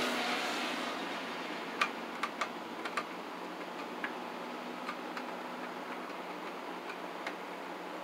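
Screwdriver tightening the clamp screws of a Romex cable connector on a plastic weatherproof switch box: light clicks at an irregular pace, about eight spread over several seconds.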